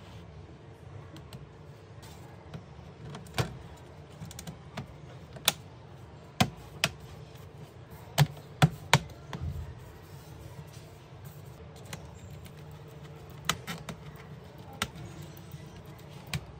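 Irregular sharp clicks and taps, about a dozen, from laptop parts being handled and fitted by hand during a RAM upgrade, the loudest cluster about halfway through, over a low steady hum.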